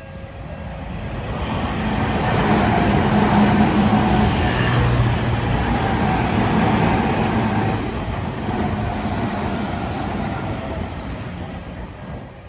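Tokyu Toyoko Line electric train passing over the level crossing: the wheel-on-rail rumble and motor hum build up over about two seconds, stay loud for several seconds, then fade near the end. The crossing's alarm bell keeps ringing underneath.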